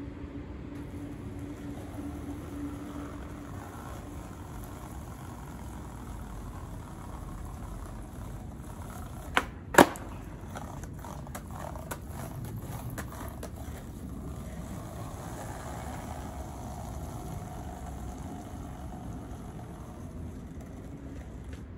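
Skateboard clacking sharply twice on the pavement, about half a second apart, a little under halfway through, then a few seconds of lighter wheel and board rattles over the ground, against a steady low outdoor background hum.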